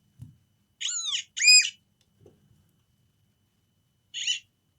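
XP Mi-6 metal detector sounding its detection tone in short chirps that rise and fall in pitch: two close together about a second in, and another near the end.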